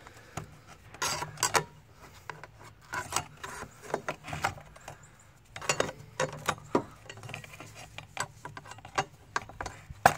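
A flat trim bar prying and scraping around a wheel cover to pop it off the wheel: an irregular run of clicks, knocks and scrapes.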